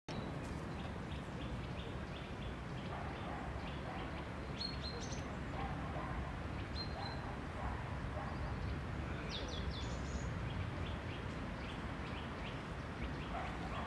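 Small songbirds calling: a long series of short, high chirps repeated about four times a second, with a few higher notes now and then, over a low steady background rumble.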